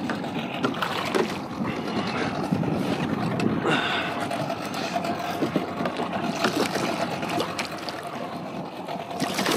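Water sloshing and wind around a fishing kayak on open sea. In the second half a faint steady whine joins it.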